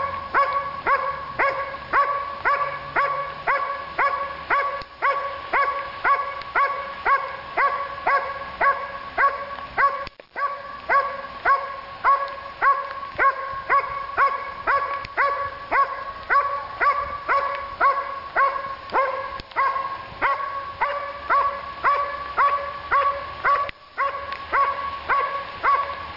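Dog barking steadily and rhythmically, about two barks a second, every bark at the same pitch, with a couple of brief breaks.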